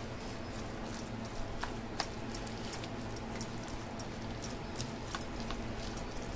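Grated cucumber and onion being mixed with chutney in a bowl: light, irregular clicks, several a second, over a steady low hum.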